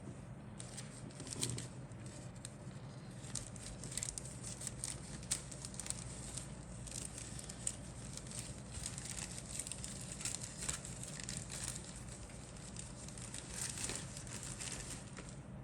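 Plastic packaging of a model kit crinkling and rustling as the parts are handled, with many small irregular crackles and clicks.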